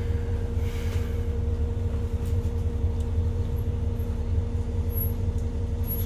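City bus idling while stopped, heard from inside the cabin: a steady low engine rumble with a steady hum over it.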